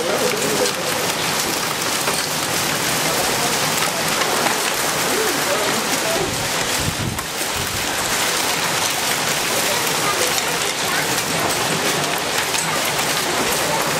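Heavy thunderstorm rain mixed with small hail pouring down onto concrete, a dense steady hiss of drops. A brief low rumble comes about seven seconds in.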